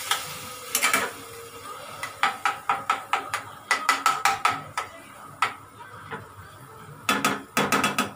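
A metal ladle stirs a watery chutney mixture in a kadhai, clinking and scraping against the pan. The knocks come in quick runs with short pauses between them.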